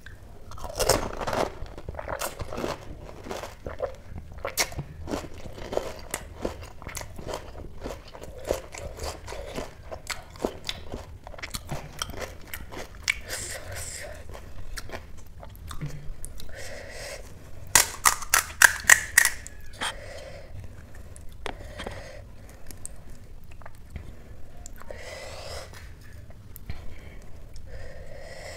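Close-miked eating of pani puri: crisp fried puri shells filled with spicy water being bitten, crunched and chewed. The chewing goes on steadily with many small crunches, and a quick run of sharp, loud crunches comes about two-thirds of the way through.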